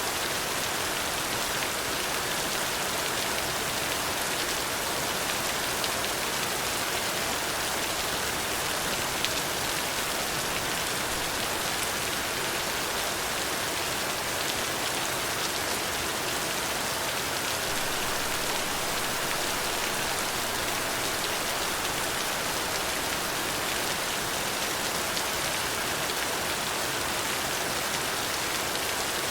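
Steady rain falling, an even hiss of many drops with the occasional single drop tick standing out, such as one about nine seconds in.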